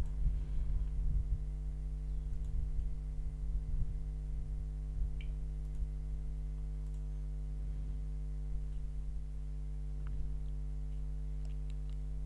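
Steady low electrical hum, with a few faint mouse clicks scattered through it.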